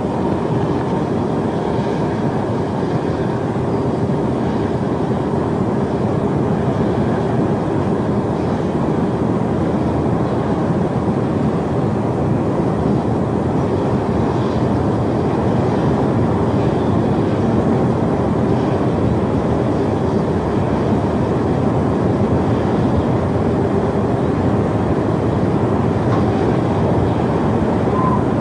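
Steady, loud, low rumbling roar of a tornado's wind, with a faint hum under it.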